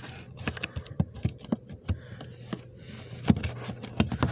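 Fingers tapping and scratching at a large cardboard box sealed with packing tape: irregular clicks and scrapes, with one sharper click about three seconds in.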